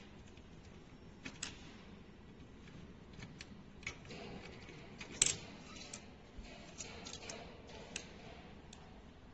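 Faint, scattered small metallic clicks and ticks of a hex key and screws working against a sheet-metal motor bracket as the belt-pulley motor's mounting screws are unscrewed, with one sharper click about five seconds in.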